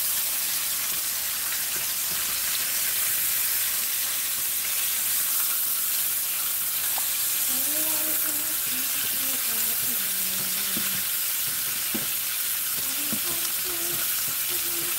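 Sirloin steaks sizzling steadily as they sear in hot butter in a frying pan on high heat.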